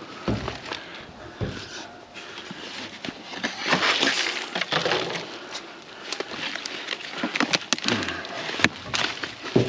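Potted plants and plastic nursery pots being shifted by hand inside a dumpster: rustling leaves with scattered knocks and clatters of plastic, busiest about four seconds in.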